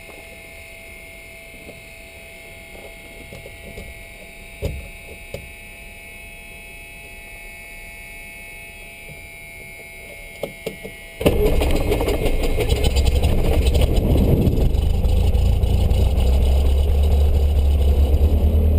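Cessna 152's four-cylinder Lycoming engine being started, heard from inside the cabin. After a few faint clicks, the engine fires abruptly about eleven seconds in and settles into steady running at idle.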